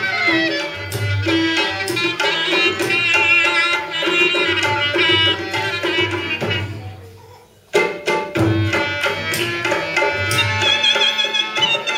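Rajasthani folk music: hand drums keep a rhythm under a sustained melody instrument. The music fades away a little past halfway, then starts again abruptly with a sharp drum stroke.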